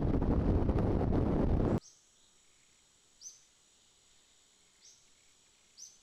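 Heavy wind buffeting on the microphone that cuts off suddenly near two seconds in, leaving quiet forest ambience with three short, high bird chirps spaced a second or more apart over a faint steady high-pitched insect drone.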